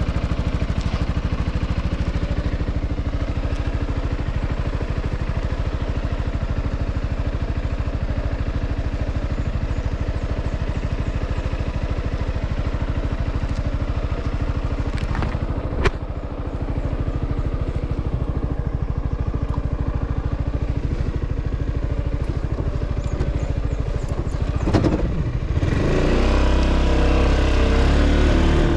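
Yamaha Xmax scooter's single-cylinder engine running steadily under way. There is one sharp click about halfway through. Near the end the engine pitch dips, then rises, and the sound grows louder as the scooter speeds up.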